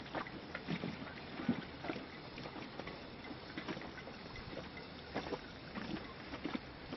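Small waves lapping and splashing irregularly against something close to the microphone, over a steady hiss of moving water.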